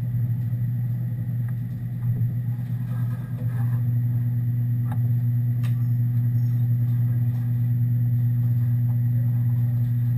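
Steady low machine hum, growing a little louder about three and a half seconds in, with a faint click near the middle.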